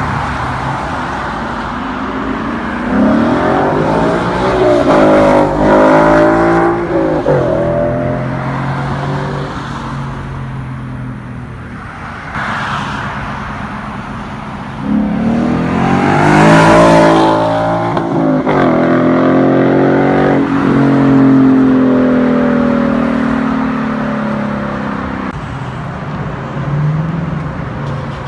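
2015 Mustang GT's 5.0 V8 through a Ford Racing X-pipe and Magnaflow Magnapack mufflers, accelerating hard twice, its pitch climbing each time, then easing off slowly near the end.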